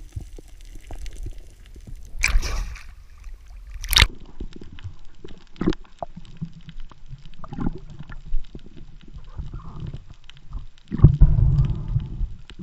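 Muffled underwater knocks, clicks and rubbing as a speared Spanish mackerel is pulled in along the spear shaft and line and grabbed by hand. There is a short rushing burst about two seconds in, a single sharp knock about four seconds in, and heavy, loud handling noise near the end.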